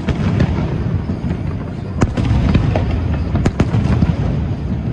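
Aerial firework shells bursting over a continuous rumble of booms and crackle, with a sharp crack about two seconds in and another about a second and a half later.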